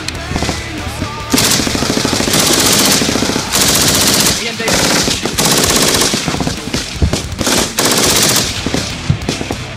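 Belt-fed machine gun firing long bursts of automatic fire from close by, starting about a second in: several bursts of rapid shots with short breaks between them.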